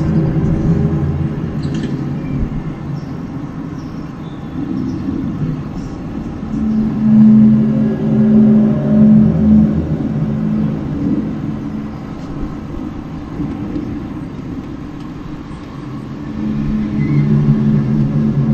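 Low, droning hum made of several steady tones, which swells louder about seven seconds in, fades back and builds again near the end. It is the unexplained 'strange sound in the sky' that the listener says recurs every ten minutes to half an hour.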